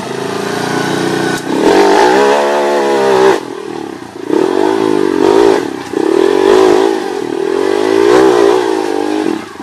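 Trail motorcycle engine revved hard in about four surges, its pitch climbing and falling with each burst of throttle.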